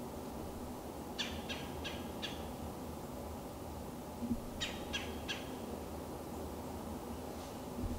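A wild bird calling in two quick series of short repeated notes, four and then three, over a steady low outdoor background, with a soft low thump near the end.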